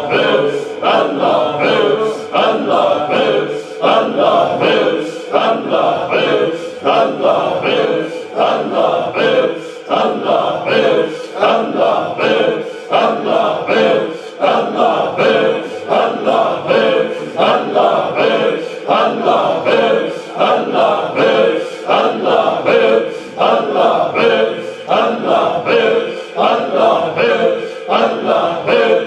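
A group of men chanting dhikr in unison, repeating a short phrase over and over in a steady, fast rhythm.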